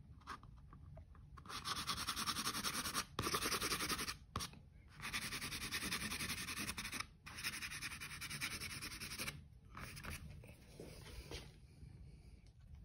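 Pastel pencil scratching across watercolor paper in quick back-and-forth strokes. It comes in several spells of a second or two each with short pauses between, and grows fainter near the end.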